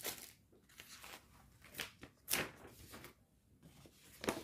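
Paper rustling as glossy paper cross-stitch pattern sheets are picked up and handled: a few short rustles, the loudest a little past two seconds in.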